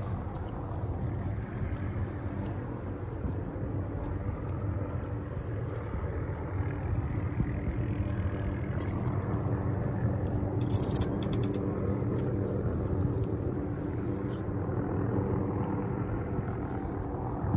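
A small fishing boat's motor running steadily with a low rumble and hum. A short run of rapid clicks comes about eleven seconds in.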